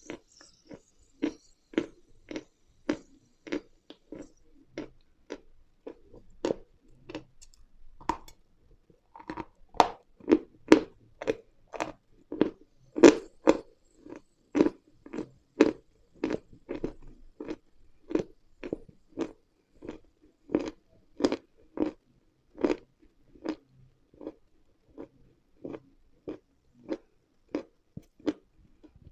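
Close-miked crunching and chewing of a dry, crumbly edible mineral, steady bites about two a second. After a short pause about eight seconds in, the crunching comes back louder and quicker.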